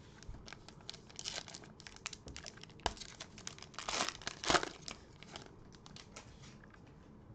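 Foil trading card pack wrapper being torn open and crinkled by hands, a dense run of crackles with a sharp click about three seconds in, loudest around four seconds in, then dying down.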